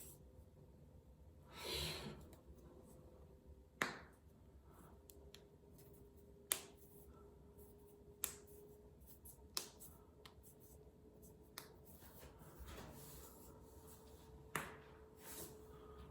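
Joints being cracked by hand, in neck- and back-cracking style: about six sharp, separate pops a couple of seconds apart, with a soft rustle of movement near the start.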